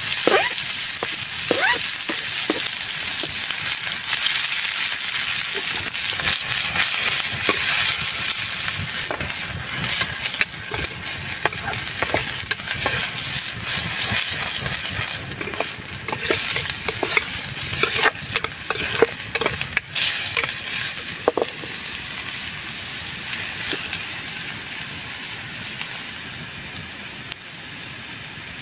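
Chopped onion sizzling as it fries in oil in a small frying pan, with a spoon scraping and clicking against the pan as it is stirred. The sizzle is loudest at the start, just after the onion goes in, and dies down toward the end.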